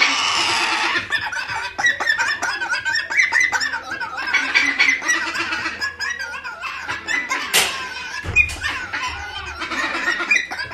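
Cockatoo chick begging to be hand-fed: a harsh screech at first, then rapid, wavering repeated calls.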